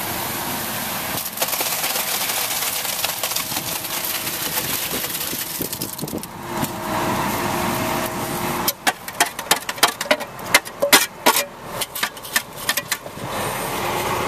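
Wet concrete rushing out of a wheelbarrow into a drilled pier shaft, with an engine running underneath. About two-thirds of the way through comes a quick run of sharp knocks and scrapes, then the pour rushes on.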